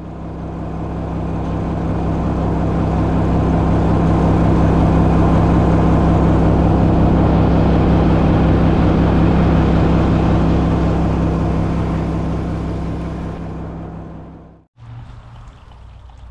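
A vehicle engine running at a steady speed, loud with an even hum and road or wind noise. It fades in over the first few seconds, fades down near the end, then cuts off suddenly.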